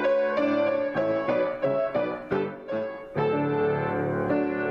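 Grand piano played solo, improvised: a run of quickly struck single notes and chords, then a full chord struck a little past three seconds in and held.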